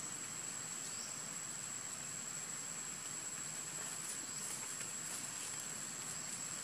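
An insect trilling steadily on a single high-pitched note, over faint outdoor background noise.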